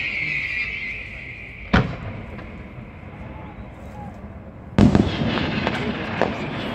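Fireworks display: a high crackling hiss fades out in the first second, then a sharp bang comes just under two seconds in. A louder bang near the five-second mark is followed by a string of crackling pops.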